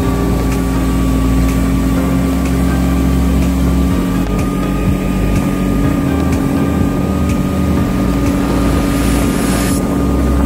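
Small speedboat's outboard motor running steadily under way, with a steady drone.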